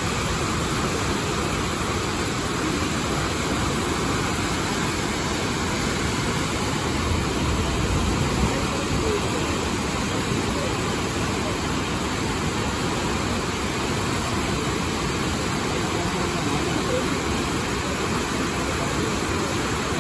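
Steady rush of turbulent whitewater rapids churning over rocks in a river in full flow, briefly a little louder about eight seconds in.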